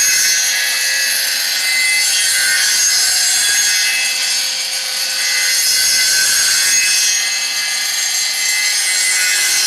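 Small circular saw disc on an electric motor cutting into a wooden propeller blank on a homemade copying machine. It makes a steady, high-pitched sawing noise that dips slightly about four seconds in.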